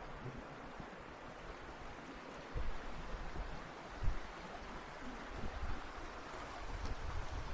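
Wind blowing across open bushland, with low rumbling gusts on the microphone that grow stronger after a couple of seconds. There is a single short thump about four seconds in.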